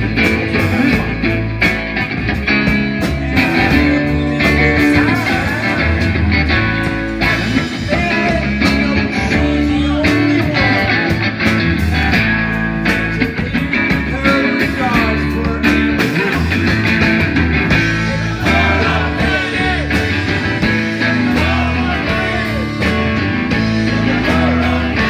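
Live rock band playing: Stratocaster-style electric guitar over a drum kit, with a steady beat.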